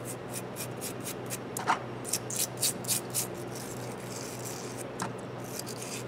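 A small brush scrubbing a rusty T-handle tap wrench, to work off rust loosened by a vinegar soak. It makes quick scratchy strokes, about four a second, with a short break before the strokes pick up again. Two light knocks come about a second and a half in and again near the end.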